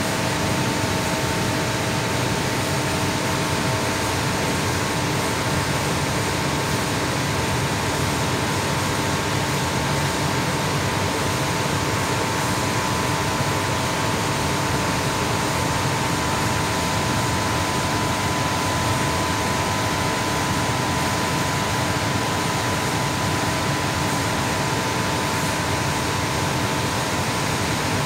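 Blower of a 20 HP floor-standing air conditioner running: a steady rush of air with a few steady hum tones in it.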